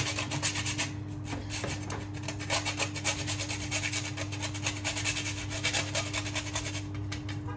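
Whole nutmeg grated on a small handheld metal grater: a run of quick rasping strokes with a few brief pauses.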